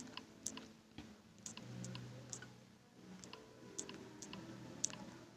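Faint, irregular light clicks of typing on a smartphone's on-screen keyboard, about a dozen over a few seconds.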